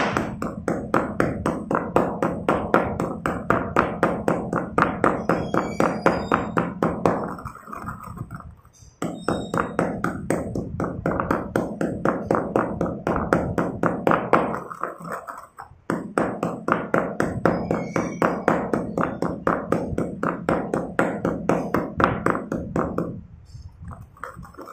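Stone pestle pounding and grinding coarse crushed chalk in a stone mortar: quick, regular crunching strokes, several a second. They come in runs of about seven seconds, with brief pauses between them.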